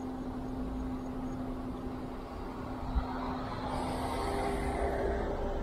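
Zero 11x electric scooter being ridden: a steady electric motor whine over wind and road noise, the whine stepping up in pitch about four seconds in. A single knock about three seconds in.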